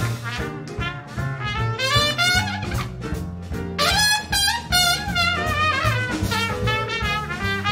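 Trumpet soloing in a jazz combo, backed by piano, upright bass and drum kit. The trumpet line wavers and bends, with a short break about three seconds in.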